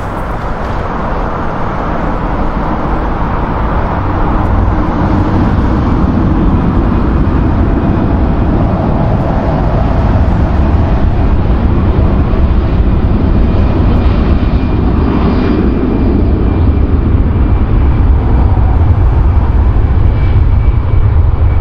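Jet airliner engines running at high power, a loud rumble that builds over the first few seconds and then holds steady.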